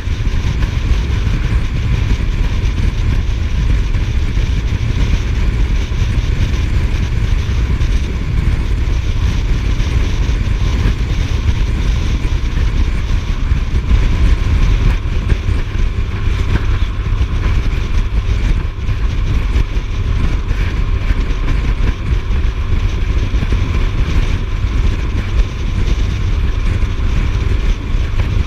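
Suzuki GSF1250S Bandit's inline-four engine running at a steady highway cruise under a constant heavy rush of wind and road noise.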